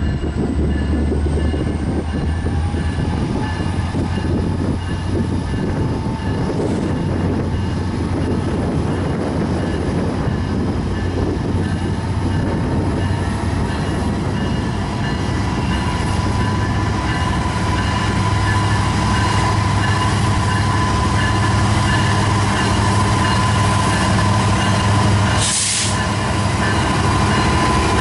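BNSF diesel-electric freight locomotives passing close by with their engines running, under a steady low rumble. A thin whine rises slightly and grows louder in the second half. A short, sharp burst of hiss comes near the end.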